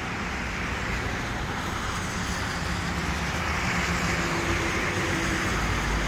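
Road traffic: a car driving past on the road, its tyre and engine noise growing louder toward the end.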